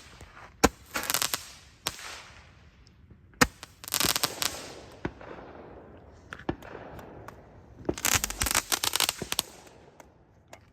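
Consumer fireworks going off: sharp single bangs and three bursts of rapid crackling, the last and loudest near the end.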